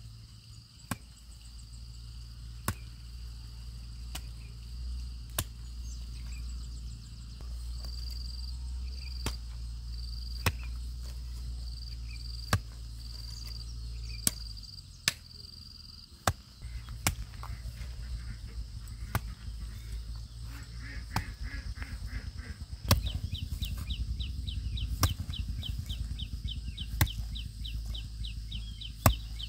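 Sharp chopping knocks, one every second or two, over a steady low rumble. A bird calls repeatedly midway, and a fast high trill sets in near the end.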